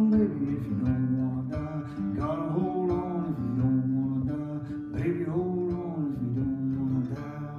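Acoustic guitar playing the closing bars of a folk song, notes ringing and fading away near the end.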